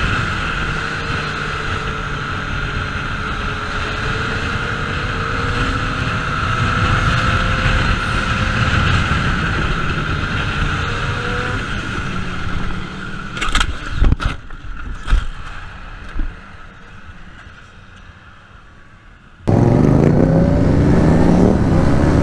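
Motorcycle running at highway speed, its engine drowned in rushing wind noise, the engine tone slowly rising as it speeds up. About two-thirds of the way through come several sharp knocks in quick succession. The sound then drops away, and near the end another motorcycle engine revs up, its pitch rising.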